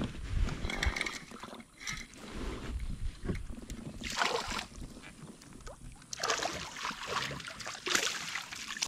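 Water splashing and sloshing beside a kayak in several short bursts as a hooked small smallmouth bass is played to the boat and netted.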